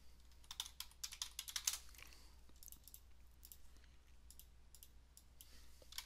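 Faint computer keyboard typing and mouse clicks: a quick run of keystrokes in the first two seconds, then scattered single clicks.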